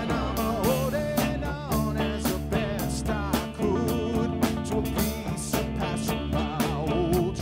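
Live rock band playing an instrumental passage: drums keep a steady beat under bass and guitar, with a lead melody on top that bends and wavers in pitch.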